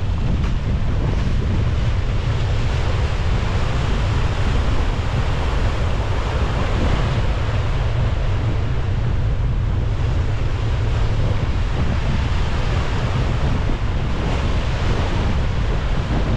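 Wind rumbling on the microphone over the steady rush of sea water and waves at the bow of a sailing brigantine under way.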